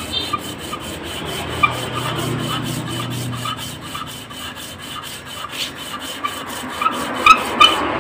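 Aluminium camshaft holder from a Suzuki Satria FU cylinder head being rubbed back and forth by hand on fine sandpaper over a glass plate: a steady, even scraping. The holder's mating face is being lapped down so it clamps the camshaft tighter again, curing play left by wear from oil starvation. Two sharp knocks near the end.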